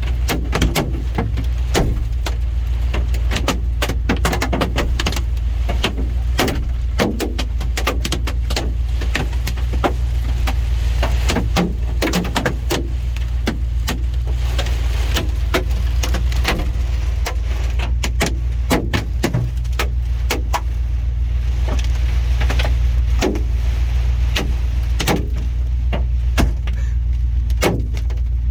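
Large hailstones pelting a vehicle's roof and windshield, heard from inside the cab: a dense, irregular clatter of sharp knocks over the steady low hum of the vehicle.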